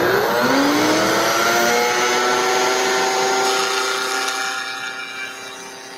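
Router-table router motor spinning up with a rising whine, then running steady at full speed.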